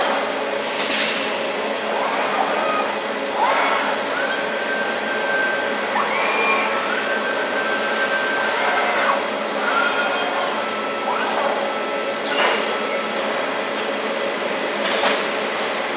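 Industrial robot arms moving on a factory line: their servo motors whine in tones that rise and then hold for a second or two, over a steady din of factory machinery. Three short, sharp sounds stand out, about a second in, near the end, and shortly before it.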